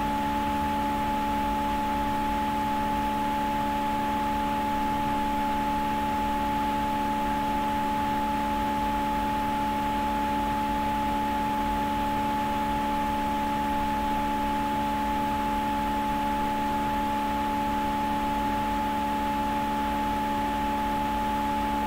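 A steady hum made of several fixed tones over a faint hiss, with no change in pitch or level.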